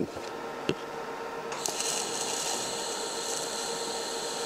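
A DC TIG welding arc from a Longevity Innovator 255i, set at about 127 amps, is struck with high-frequency start about a second and a half in and then burns with a steady hiss as a small bead is run on a steel sprocket and galvanized washer. A short click comes just before the arc starts.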